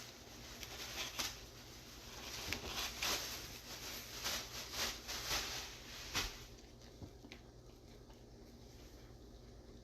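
Rustling of clothes being handled and sorted, with a few short sharp rustles and soft knocks; it dies down about six seconds in.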